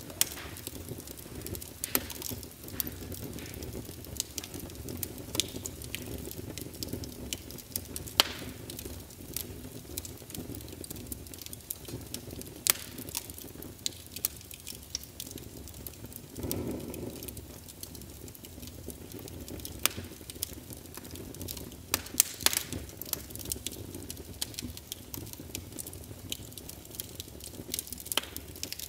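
Log fire crackling: irregular sharp pops and snaps over a low steady background, with a brief swell of low noise a little past halfway.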